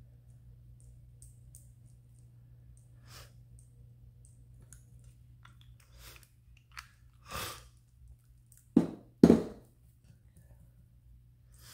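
Small handling sounds of a paintbrush and ink bottle at a work table: faint clicks and taps over a low steady hum, a short swish about seven seconds in, then two loud knocks on the table about half a second apart.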